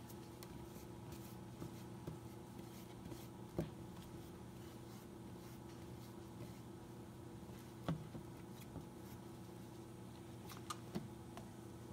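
Faint bristle strokes of a wide paintbrush spreading coating on an OSB wood panel, over a steady low hum. A few light clicks and knocks stand out, two of them close together near the end.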